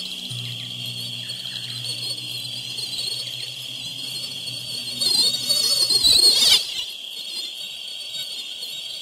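Night insect ambience: a steady chirring of crickets over a low steady hum. About five seconds in, a louder wavering high buzz swells for a second and a half, then drops away in a falling sweep.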